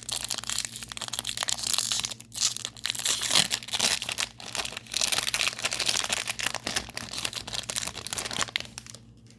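Foil wrapper of a Pokémon booster pack being torn open and crinkled, a dense crackling that dies down near the end.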